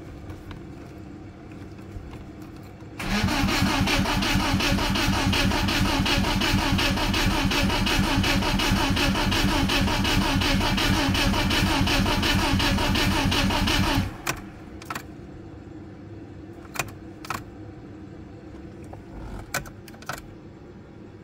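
Starter motor cranking the BMW E36's M42B18 four-cylinder engine, on its first start attempt with newly wired coils and a Megasquirt ECU. It cranks at an even pace for about eleven seconds without catching, then stops abruptly. There is a low hum before the cranking and a few sharp clicks after it.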